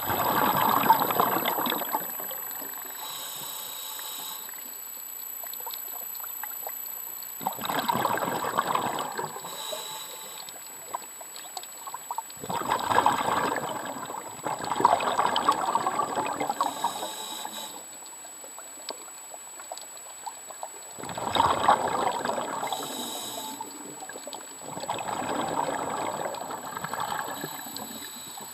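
Rushing, trickling water swelling and fading in slow surges every few seconds, like waves washing, with a faint steady high whine underneath.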